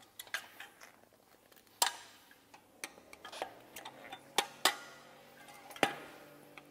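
Metal tire irons clicking and clinking against a dirt bike's spoked rim as the tire bead is levered up over the rim, a string of irregular sharp clicks.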